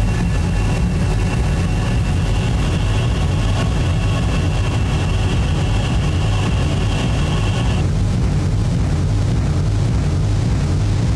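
Dark ambient noise drone: a dense, steady low rumble with thin, steady high tones above it that cut off about eight seconds in.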